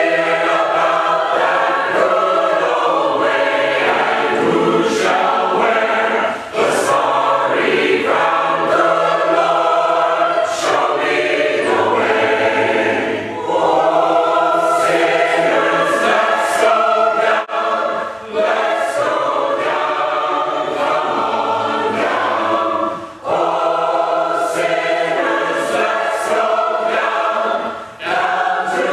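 Mixed choir of women's and men's voices singing together in full harmony, in long phrases broken by brief pauses for breath.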